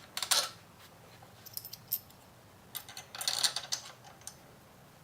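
Small metal parts clinking and rattling as they are handled: new case-cover bolts and tools. There are a few clicks near the start and a longer clattering run about three seconds in.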